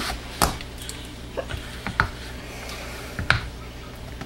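A silicone spatula working thick soap batter in a plastic tub, knocking and tapping against the tub about four times over a few seconds.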